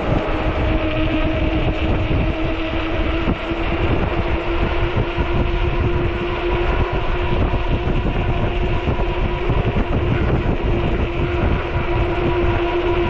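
Ecotric 48V fat-tire e-bike under way: a steady whine that creeps slightly up in pitch, over heavy low wind buffeting on the microphone and rough-road rumble.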